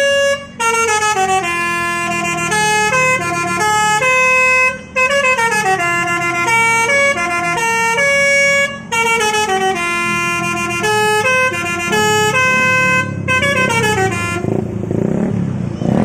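Bus telolet horn, a multi-tone air horn, playing quick melodic phrases of stepped notes, loud, with brief pauses between phrases. Near the end the horn stops and a rushing vehicle noise takes over.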